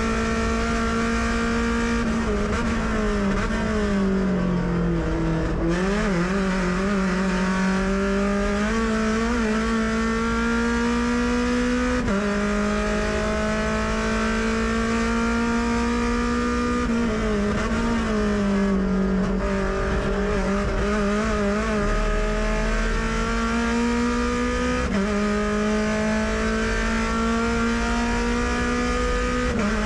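Mazda MX-5 Cup race car's four-cylinder engine heard from the cockpit at racing speed. It climbs through the revs with sudden drops at upshifts about a third of the way in, again later and near the end. Twice it falls away with uneven wobbles as the car brakes and downshifts, then pulls up again.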